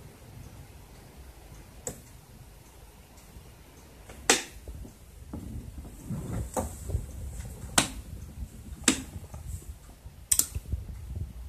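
Relays on the control board of an AEG Öko Lavamat 60600 washing machine clicking as the board runs its wash program normally, switching the motor and water valves: five sharp single clicks a second or more apart. A low rumble comes and goes in the middle.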